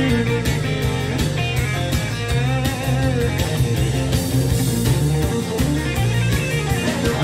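Country song playing in an instrumental passage with no vocal: guitar leads over bass and drums, with some bending, wavering notes.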